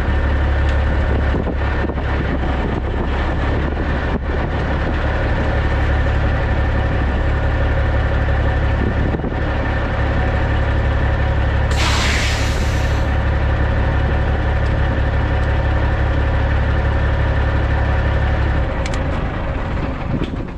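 Caterpillar C15 diesel of a 2006 Peterbilt 379 idling steadily, heard close beside the exhaust stack. About twelve seconds in, a short burst of air hisses for about a second. Near the end the engine sound drops away.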